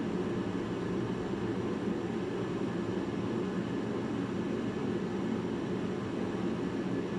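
Steady, even low rumbling background noise with no distinct knocks or tones.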